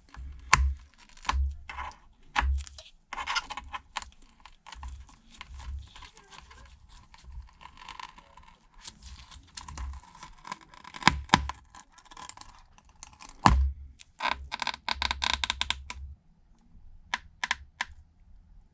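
Irregular clicks, taps and scraping of a prying tool working under a glued-down iPad Pro battery cell, with two stretches of crackling as the battery adhesive gives way.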